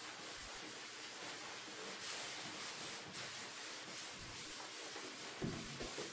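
Felt chalkboard eraser rubbing across a chalkboard in long wiping strokes, clearing chalk writing, with a couple of soft knocks near the end.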